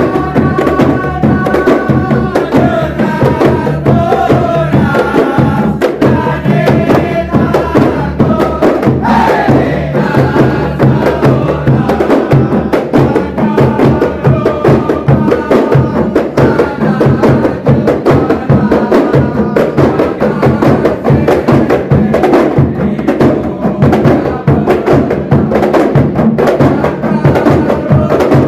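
A kompang troupe playing a fast, dense interlocking rhythm on hand-struck kompang frame drums, with a large barrel drum keeping the beat, and men singing over the drumming.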